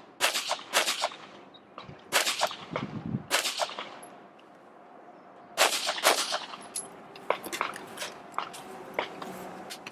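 A string of pistol shots, some in quick pairs, with sharp metallic clangs typical of steel targets being hit. There is a short lull of about a second and a half near the middle.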